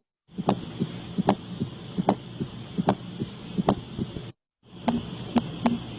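Recorded heart sounds heard through a stethoscope: a sharp click with each beat, about 75 a minute, with a softer low sound between the clicks, over a steady hiss. After a brief break a second heart recording starts, its beats coming faster.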